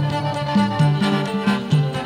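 Mor lam band playing an instrumental passage: a bass line stepping back and forth between two notes under a melody, with a quick steady beat.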